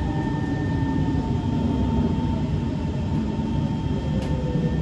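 Kawasaki C151 MRT train heard from inside the car as it slows alongside a station platform: a steady rumble of the ride with the traction motors' whine falling slowly in pitch as it brakes, over two steady high tones.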